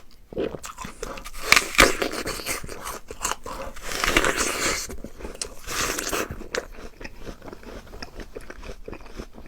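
Biting into a Huaniu apple with a sharp crunch a little under two seconds in, then crunchy chewing of the crisp flesh.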